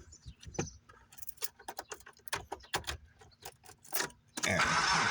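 Small metal items jingling and clicking as they are handled, in a quick irregular run of light clicks. About four and a half seconds in, a steady rushing noise starts.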